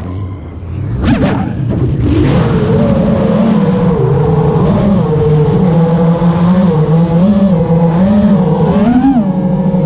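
FPV racing quadcopter's brushless motors (Eachine 250 Pro, 2300KV) in flight. The pitch drops sharply at the start as the throttle is chopped, picks back up after about a second, holds a wavering pitch with small throttle changes, and climbs again near the end.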